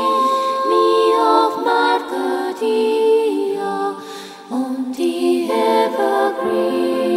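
Wordless choral music: several voices hold slow chords that shift every second or so, with a brief softer moment about four seconds in.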